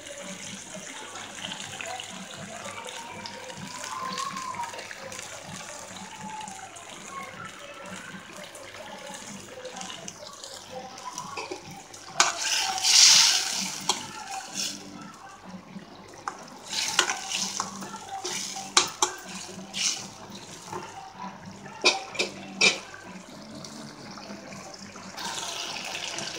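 Curry simmering in a steel pan with a steady bubbling. About halfway through a spoon stirs and scrapes through the gravy, then clinks against the pan several times.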